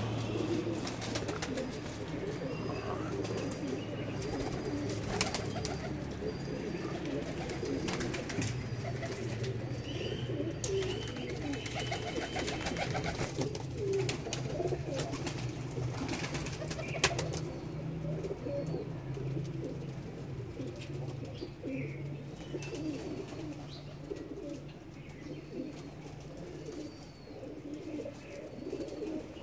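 Domestic pigeons cooing continuously in a wire-mesh loft, several birds overlapping in a low, steady murmur.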